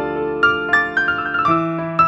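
Background piano music: single struck notes of a melody over held lower chords.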